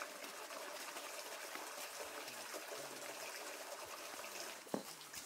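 Steady trickle of running water, with a single short knock shortly before the end.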